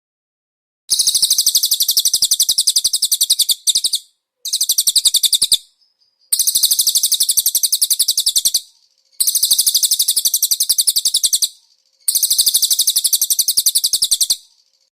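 Small songbird trilling in long bursts of very rapid, high, repeated notes. There are about five bursts of one to three seconds each, separated by short silences. This is the kind of song played as a masteran, a training recording for caged songbirds.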